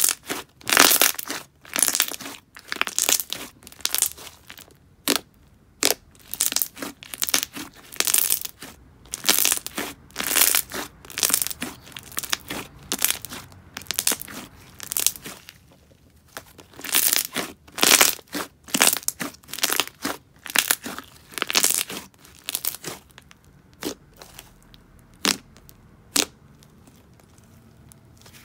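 Thick and glossy slime being squished and pressed by hand, giving clusters of sticky clicks and sharp bubble pops as trapped air bursts, a burst every second or so; the clicks grow sparse near the end.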